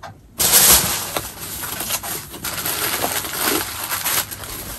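White wrapping tissue paper rustling and crinkling as it is handled and pulled apart, starting sharply about half a second in and loudest just after it starts.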